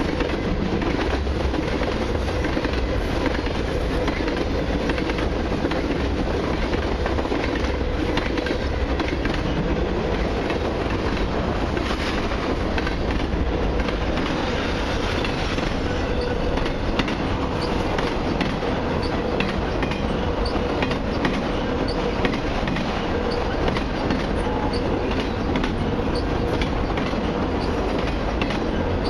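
Freight cars of a long mixed train, tank cars and then autoracks, rolling past close by. There is a continuous loud rumble of steel wheels on rail, with rapid clicking over the rail joints and a steady squealing tone from the wheels.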